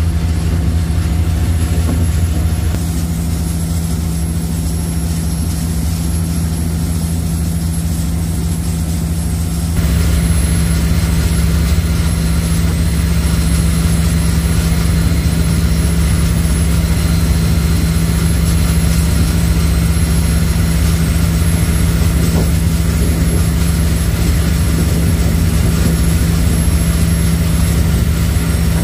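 A high-speed passenger ferry's engines running steadily under way: a loud, constant low drone with a strong steady hum. It steps slightly quieter about three seconds in and louder again about ten seconds in.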